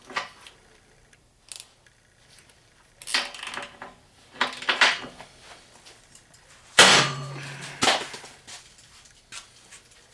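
Matco 88 ratchet straining under a person's full body weight, giving a series of sharp metallic cracks and clanks as its mechanism fails. The loudest is a sharp bang about seven seconds in, with a short ringing after it.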